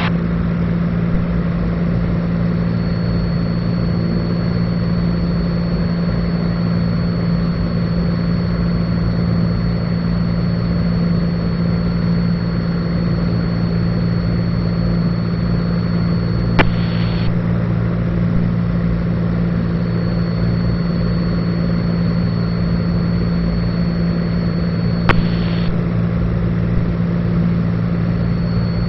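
Cessna 182 Skylane's piston engine and propeller droning steadily in level cruise flight. A faint high whine drops in and out, and two sharp clicks sound, one a bit past halfway and one near the end.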